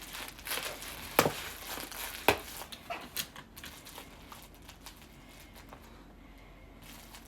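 Packaging and plush toys being handled: rustling and crinkling, with two sharp snaps about one and two seconds in, growing quieter toward the end.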